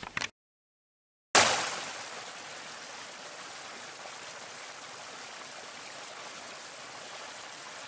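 A small stream splashing down over rocks in a steady rush of water. It starts suddenly about a second in, after a moment of silence.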